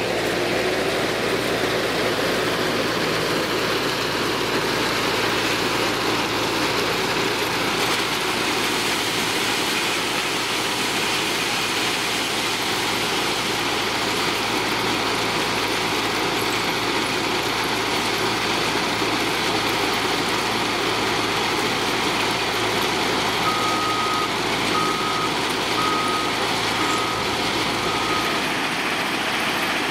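Cat 950M wheel loader's diesel engine working steadily alongside a running mobile screening plant. A reversing alarm beeps five times near the end.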